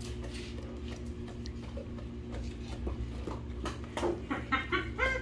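Dogs begging for cheese, claws clicking on a hard floor and mouths licking at a hand, over a steady low room hum. A short high cry comes near the end.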